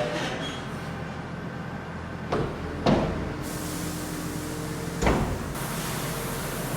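Three sharp clunks over a steady low engine hum, two close together near the middle and one more about two seconds later.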